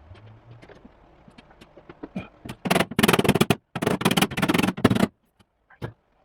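A power driver sinking self-tapping screws into sheet steel to hold a floor-pan patch panel in place before welding. Two loud bursts of about a second each come midway, after a few faint clicks.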